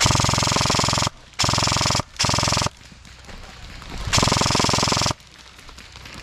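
Airsoft gun firing on full auto in four bursts, the longest about a second, each a fast even rattle of shots.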